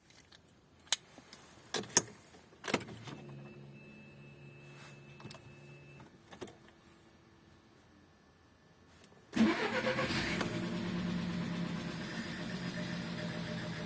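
Volkswagen Golf 6's 1.4 TSI (CAXA) petrol engine started from cold: a few sharp clicks and a few seconds of faint electric whine and hum as the ignition is switched on, then about nine seconds in the engine cranks briefly, catches and settles into a steady idle. The owner hears an extraneous noise from this engine when cold, together with an EPC fault.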